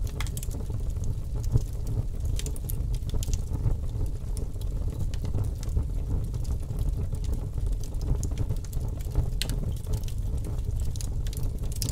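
Fire burning: irregular crackles and pops over a steady low rumble of flames.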